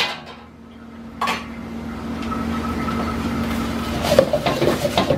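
Stir-frying in a black iron wok over a gas burner: food sizzling, with a sharp click at the start and a knock about a second in. From about four seconds in, a utensil scrapes and clatters against the wok.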